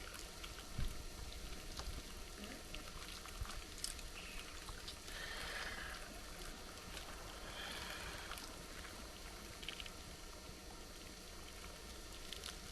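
Faint trickling and sloshing of hot water in a container as a piece of crushed foam soaks in it, with a few small knocks and a brief swell of splashing about halfway through.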